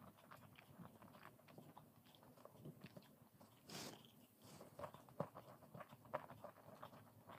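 Faint close-up eating sounds: wet chewing and small mouth clicks from a mouthful of sweet bundiya and syrupy jalebi, with a sharper bite into a jalebi about halfway through.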